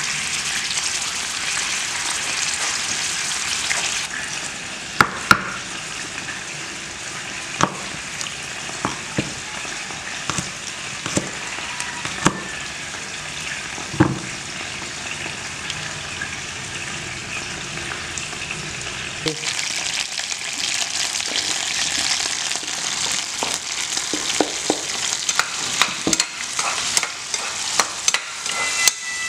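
Snails sizzling in hot oil in a metal frying pan. Through the middle the sizzle drops back under a run of sharp knife taps on a wooden chopping board; about two-thirds of the way through the sizzling grows louder again, with the clinks and scrapes of a metal ladle stirring chopped vegetables in the pan.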